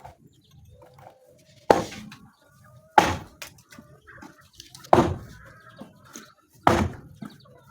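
Four sharp knocks, one every one and a half to two seconds, each dying away quickly.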